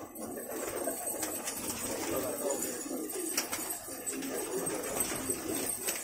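A loft full of Banarsi fighter pigeons cooing, many birds at once in a continuous overlapping chorus.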